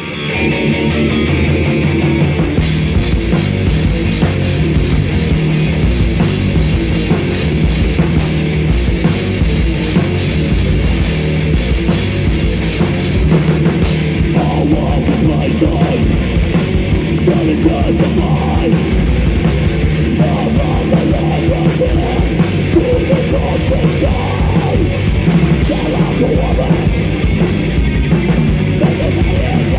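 Heavy metal band playing live: electric guitars and a drum kit playing a loud, dense, heavy song, which fills out about two and a half seconds in.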